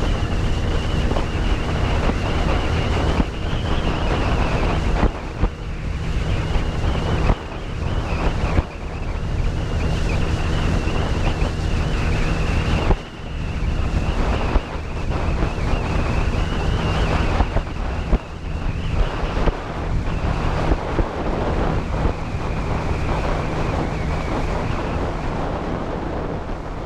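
Motorboat running across the water with a steady engine hum, wind rushing over the microphone and water noise, fading out near the end.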